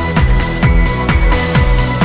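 Background electronic dance music with a steady kick-drum beat, about two beats a second, over held synth tones.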